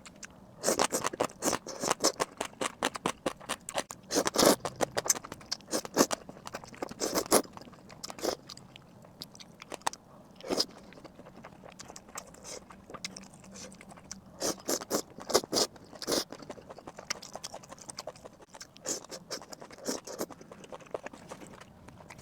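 Close-miked eating: a person chewing and biting food, with crunchy, sticky mouth clicks coming in irregular clusters between quieter stretches of softer chewing.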